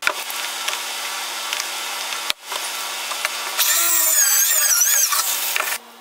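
Cordless drill driving a long pocket screw into a wooden table leg: after a steady hiss, the motor whines loudly for about a second and a half past the middle, its pitch wavering as the screw bites into the wood.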